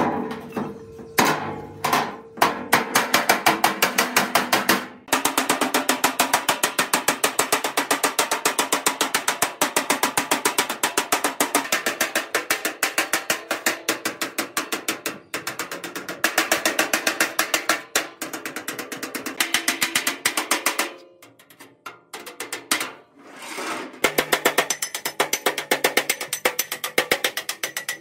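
Rapid, even hammer blows on the thin, rusty sheet-steel body of a mini concrete mixer, several strikes a second, the metal ringing as dents are beaten out. The hammering stops for about two seconds past the middle, then starts again.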